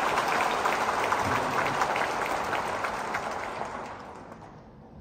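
Audience applauding, a dense patter of clapping that fades away about four seconds in.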